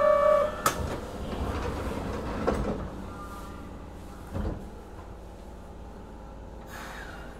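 Inside a Kobe Municipal Subway 1000 series car at a station stop: the notes of a chime end just after the start, then the sliding doors shut with a sharp knock. Two further clunks follow, at about two and a half and four and a half seconds, and after them only the steady hum of the standing car remains.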